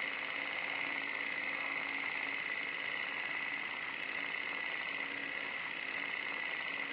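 Steady, even hiss with a faint low hum beneath it, the sound bed of an old-film-style logo intro.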